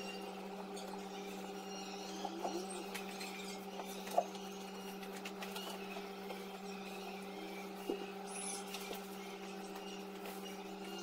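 A steady low hum runs throughout, under faint rustling of a bedsheet being spread and smoothed over a mattress, with a few small ticks and taps, the sharpest about four seconds in.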